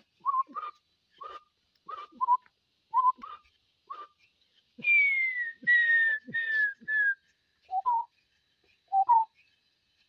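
A man imitating bird calls by whistling into the end of a bladed tool's metal handle. A string of short whistled notes comes first, then about halfway through four louder falling whistles with a breathy rush, and near the end two lower rising notes.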